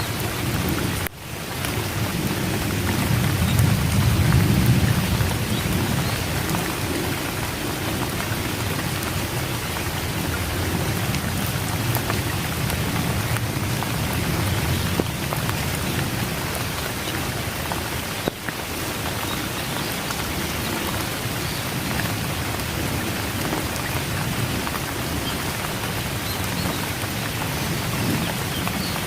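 Steady rain falling, with a low rumble of thunder swelling and fading a few seconds in. The sound drops out for an instant about a second in.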